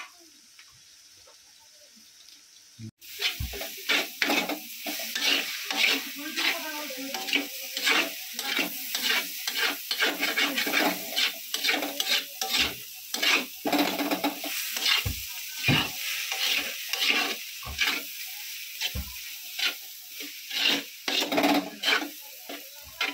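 Metal spatula scraping and knocking against a wok in quick, irregular strokes while stir-frying noodles and egg, over the sizzle of hot oil. The first few seconds are quieter, and the stirring starts abruptly about three seconds in.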